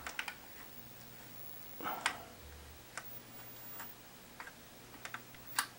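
Faint clicks from the rotary tuner knob of a 1988 GE 9-inch color TV being turned by hand: a quick cluster at the start, then single clicks every half second to a second, with a brief scrape about two seconds in.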